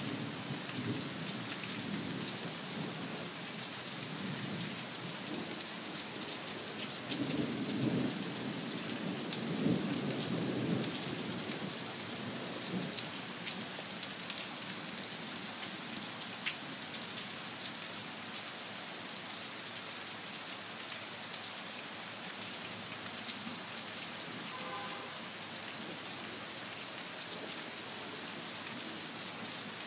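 Steady rain falling in a thunderstorm. A low, rolling rumble of thunder builds over the first several seconds and peaks about a third of the way through, then dies away and leaves only the rain.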